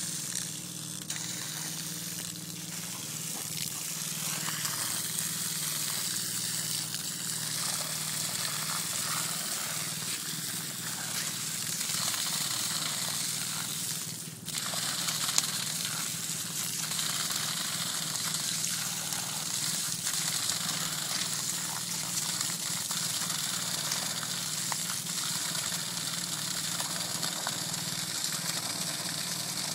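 Running water gushing steadily, with a faint low hum underneath; the rush drops briefly about halfway through.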